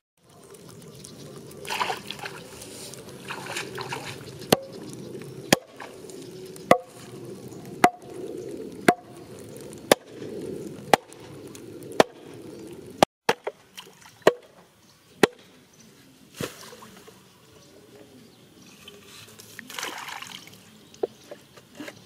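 Bamboo stake being worked into the muddy pond edge: sharp knocks about once a second for roughly ten seconds, over water sloshing in the shallows.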